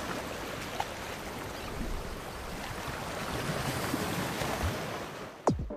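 Steady rush of sea surf. Near the end the first deep beats of electronic music cut in.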